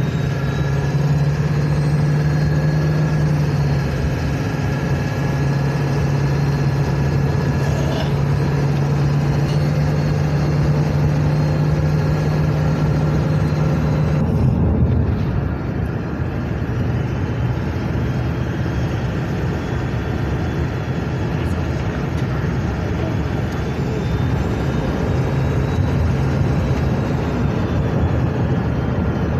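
Ford 7.3 Powerstroke V8 turbo-diesel running, with a faint high turbo whistle over the steady engine note: the whistle comes from a boost leak, air escaping at the turbo. The sound changes abruptly about halfway through.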